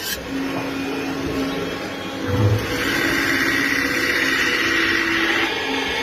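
Factory machinery running with a steady hum, a dull thud about two and a half seconds in, and a hissing noise from about three seconds in that stops shortly before the end.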